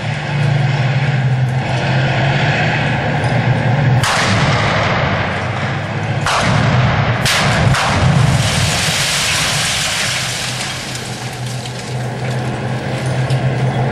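Gunfire and blasts in urban fighting: a sharp bang about four seconds in, two or three more around six to seven and a half seconds, then a stretch of dense crackling noise, over a steady low hum.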